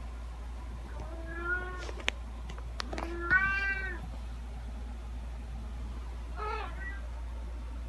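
A domestic cat meowing three times: once about a second in, more loudly about three seconds in, and a shorter, fainter meow near the end. A few sharp clicks fall between the first two meows.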